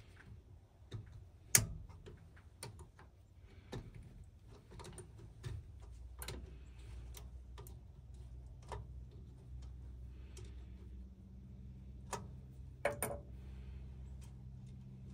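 Scattered, irregular clicks and light knocks, like hands and tools at work. A low steady hum comes in about five seconds in and keeps going.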